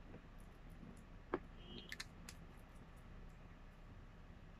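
A few faint clicks and one light knock from handling a small glass essential-oil bottle and its plastic cap, against quiet room tone.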